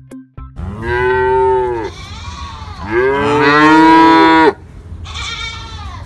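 Black-and-white Holstein calves mooing: three calls, the first two loud and drawn out, each rising then falling in pitch, and a shorter, fainter third moo near the end.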